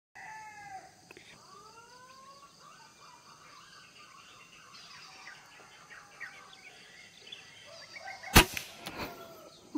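Several whistled bird calls that glide up and down in pitch in the first couple of seconds. About eight seconds in comes a single sharp air rifle shot, the loudest sound, followed by a couple of fainter knocks.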